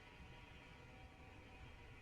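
Near silence: a faint, steady low hum and hiss with nothing else standing out.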